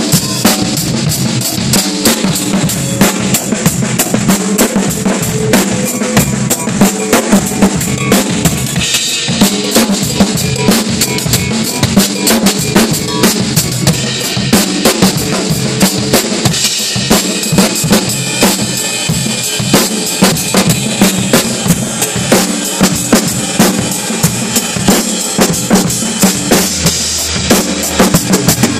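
Peavey RP500 acoustic drum kit played in a steady beat of bass drum, snare and cymbals, with occasional tom hits. It is played by a beginner on his newly set-up and tuned first kit.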